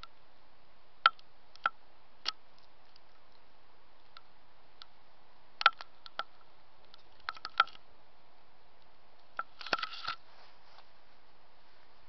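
Steady faint hiss broken by scattered sharp clicks and ticks, single ones at first, then a quick cluster of them near the end.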